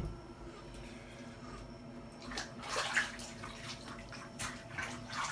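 Water splashing and sloshing in a bathtub: a few quiet seconds, then irregular splashes from about two seconds in.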